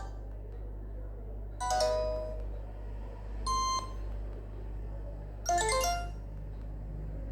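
LG MX210 ringtone played through a Nokia 6300's loudspeaker: a short chiming phrase of a few notes, repeated about every two seconds, over a steady low hum.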